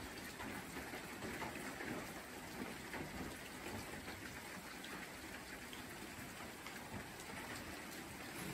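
Steady rain falling under a forest canopy of tree ferns, with scattered individual drops ticking through the hiss.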